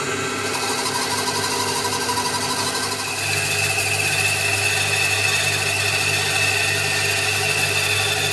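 Bandsaw running steadily, cutting the ends off a round log, with a steady low hum; a higher whine joins about three seconds in.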